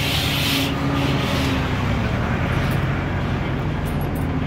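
Air-cooled Deutz F4L912 four-cylinder diesel of an Otokar M-2000 minibus running steadily while the bus is under way, heard from inside the cab at the front. A short hiss comes near the start.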